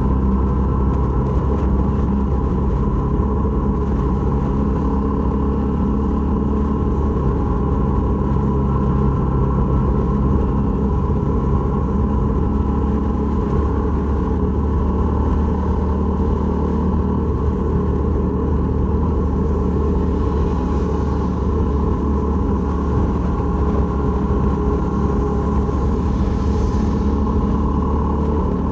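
Honda MSX125's single-cylinder four-stroke engine running at a steady speed, a constant low rumble with no change in pitch.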